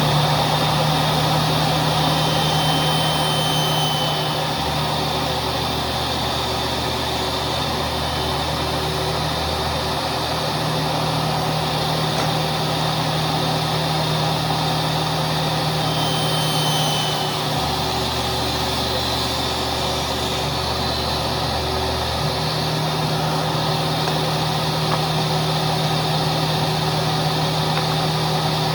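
Electric woodworking power tool running steadily, a continuous motor whine and hum over a dense whooshing noise, with the low hum shifting slightly in level a few times.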